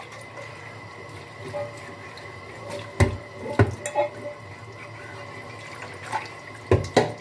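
Kitchen tap running into a sink during hand dish-washing, with sharp knocks of dishes and utensils against the sink: two about three seconds in and two more near the end.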